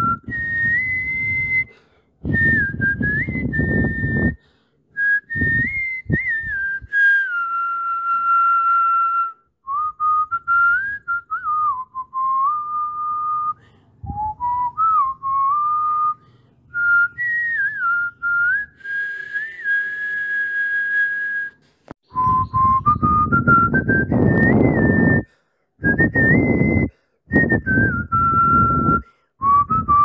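A whistled melody, one clear line gliding and stepping between notes, with stretches of low rumbling noise that start and stop abruptly.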